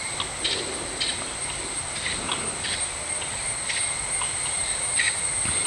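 Insects, crickets or cicadas, droning steadily at a high pitch, with short chirps scattered throughout.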